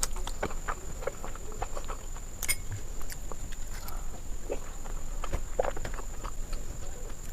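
Close-miked chewing and mouth sounds of someone eating Indian sweets: irregular soft clicks and wet smacks, several a second.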